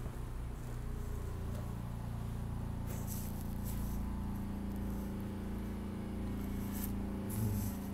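SEPTA Broad Street Line subway car standing at a station stop, a steady low electric hum from its equipment with a few short hisses.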